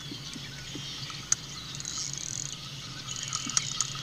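Spinning reel being cranked while a hooked fish is reeled in, a faint whirring over a steady low hum, with a sharp click about a second in and another near the end.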